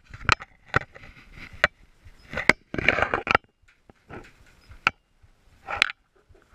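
Boots stepping up over a door threshold and across an enclosed porch: about six irregular sharp knocks and scuffs, with clothing brushing against a body-worn camera.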